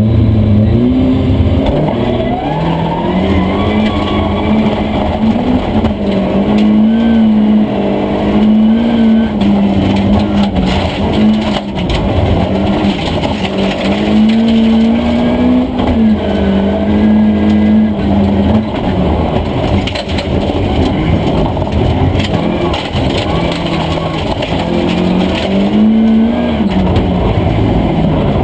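Volvo 240 Group H rally car's engine run hard, heard from inside the cockpit. Its pitch climbs, holds and drops again and again as the car is driven flat out on a gravel stage.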